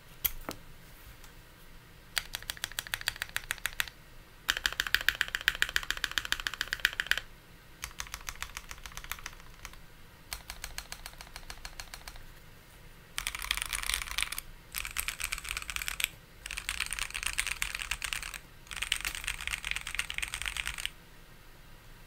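Keychron Q1 mechanical keyboard with lubed Everglide Aqua King linear switches on a polycarbonate plate, with MDA-profile keycaps and foam and silicone case mods, keys tapped in rapid bursts. There are seven runs of clicky clacks, each two to three seconds long at about ten strokes a second, with short pauses between them.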